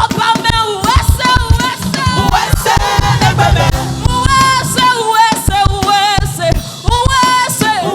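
Live gospel praise singing: voices holding wavering sung lines over a band with drums and a steady beat.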